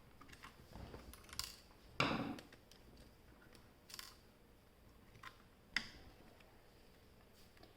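Screwdriver working the small retaining screw of an M.2 NVMe drive on a motherboard: a handful of light metal clicks and taps, the loudest a short clatter about two seconds in.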